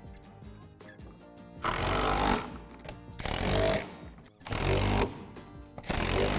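Power drill/driver run in four short bursts of under a second each, driving the bolts that fasten plastic climbing handholds to a rock-wall panel.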